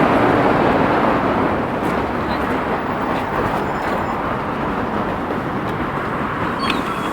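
Running noise of a LiAZ 6213.65 articulated city bus under way, a steady mix of engine and road noise that eases off gradually.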